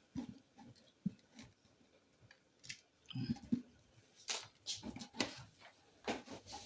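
Irregular small taps, knocks and crunches of food preparation by hand, with a few duller thuds a little past the middle.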